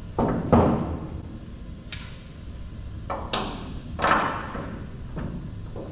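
Metal suspension parts and tools knocking and clanking as leaf-spring eye-bolt hardware is fitted: about seven sharp, irregular knocks. One knock, about 2 s in, has a short bright metallic ring.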